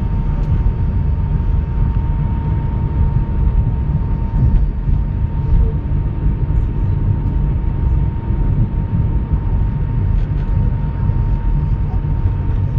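Steady low rumble of an airliner cabin as the jet taxis, with a faint steady whine held throughout.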